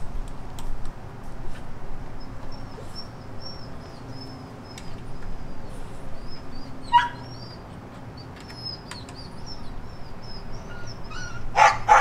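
A dog gives a quick run of loud barks near the end, after a stretch of high, thin repeated chirps and a sharp call about halfway through. Faint clicks and taps are scattered through it.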